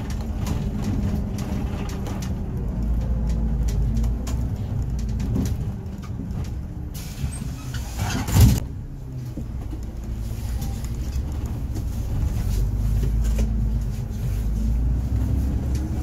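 Cabin sound of a city bus: the engine's steady low drone, with a short burst of hissing air from the bus's pneumatics about seven to eight and a half seconds in as it halts at the stop. The engine note rises a little near the end as the bus pulls away.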